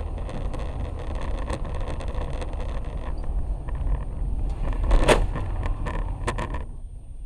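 Steady tyre and engine rumble inside a car driving on a slushy road. About five seconds in, a sudden loud spray as slush hits the windscreen, followed by a few sharp knocks.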